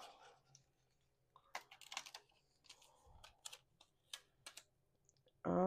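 Paper stickers being peeled from their backing sheet and pressed onto a planner page: a light, irregular run of papery clicks and crackles.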